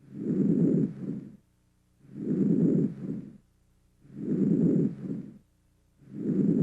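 Normal vesicular breath sounds as heard on auscultation of the lungs: soft, low-pitched breathing. Each breath is a longer inspiration running into a short, fading expiration, followed by a silent pause, about one breath every two seconds.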